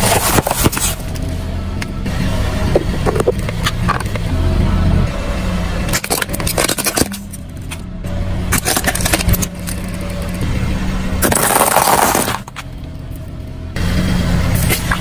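A car's engine and tyre rumble low and steady while the tyre rolls over and crushes boxed biscuits and plastic toy cars, with several sudden crunching, cracking bursts. The longest crack comes near the end.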